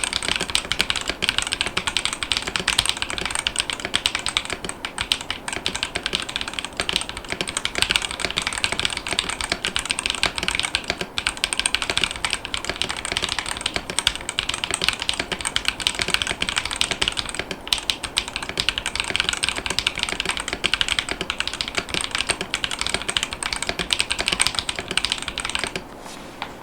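Continuous fast typing on a Ducky ONE 3 SF mechanical keyboard fitted with Gateron Weightlessness tactile 50 gf switches and double-shot PBT keycaps: a dense run of key clacks that stops about a second before the end.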